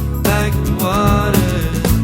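Music: a song with a gliding melody over steady bass and regular drum beats.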